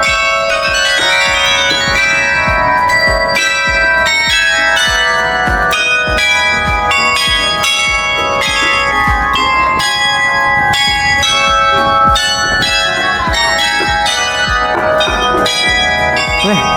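Large tower bells of the Swan Bells ringing in quick succession, about two or three strokes a second, with each bell's long ringing tone overlapping the next.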